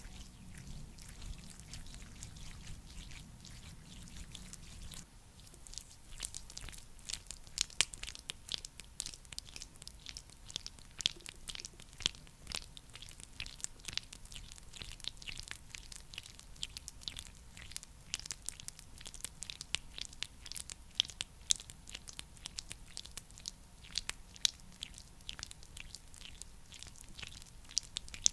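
Close-miked sticky, crackling clicks, many to the second and irregular, from a thick skincare product being worked and patted. A low hum sits under the first five seconds and stops.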